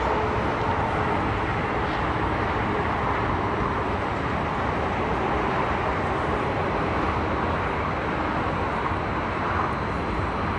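Steady rush of traffic on a busy multi-lane highway, continuous and even with no distinct events.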